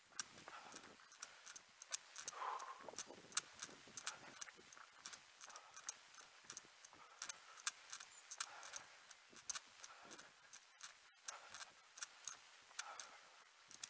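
A runner's footfalls, a quick even patter of about three steps a second, picked up by a head-mounted action camera.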